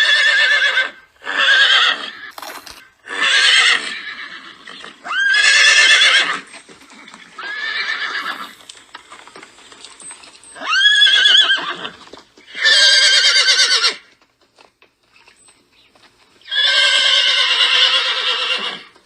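A horse neighing and whinnying: about eight separate calls with short gaps, some starting with a sharp upward squeal, the last one the longest.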